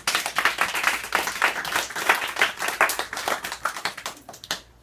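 Applause from a class of children: many hands clapping in a dense patter, thinning out and stopping suddenly near the end.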